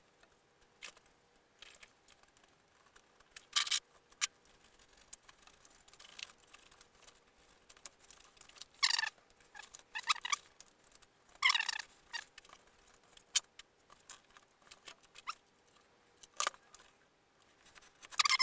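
Utility knife cutting into a foam fuselage: short scraping cuts spaced a second or more apart, with small clicks and handling knocks between them.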